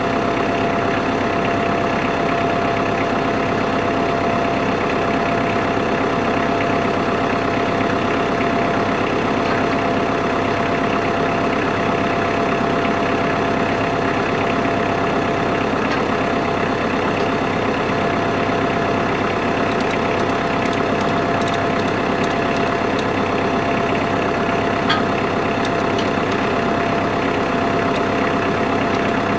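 Kubota L3940 tractor's diesel engine running at a steady, unchanging speed.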